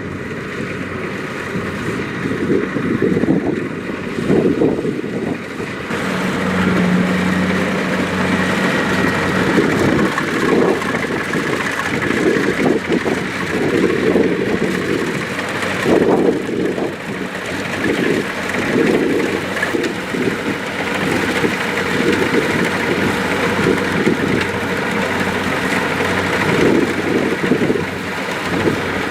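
Kubota DC-70 Plus combine harvester's diesel engine running steadily with the machine working, its sound surging and easing unevenly.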